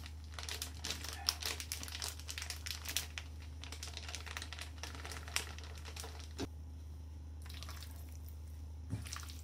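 Flour bag crinkling as bread flour is shaken out of it onto raw chicken pieces in a stainless-steel bowl, with dense crackling for the first several seconds. After about six and a half seconds it gives way to quieter sounds of hands tossing the chicken in the flour. A steady low hum runs underneath.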